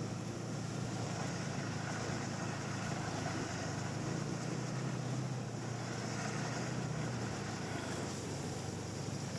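Snowmobile engine running steadily at travelling speed: a constant low drone under a rushing noise, with no change in pace.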